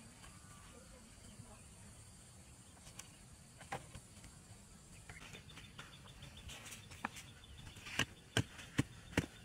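Faint insect chirring, then from about seven seconds in a run of sharp knocks roughly every half second as a hand tool strikes the soil at the base of a bamboo post.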